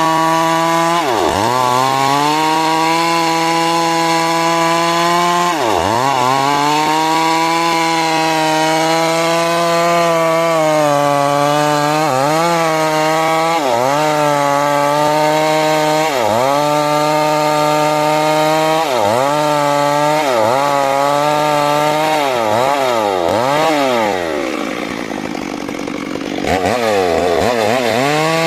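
Stihl MS 382 two-stroke chainsaw running at high revs while ripping lengthwise through a large rain-tree log. Its pitch dips sharply and recovers again and again as the chain bogs under load. Near the end the engine drops quieter for a couple of seconds, then revs back up.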